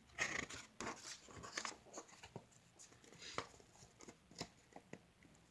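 Soft paper rustling and scattered small clicks of a picture book's pages being handled and turned.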